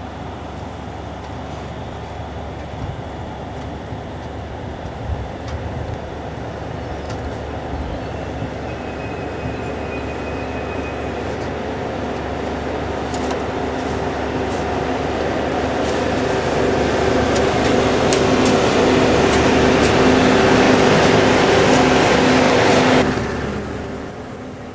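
Train running noise heard from aboard: a steady rumble with a hum that builds louder over the second half, with a few clicks, then falls away sharply about a second before the end.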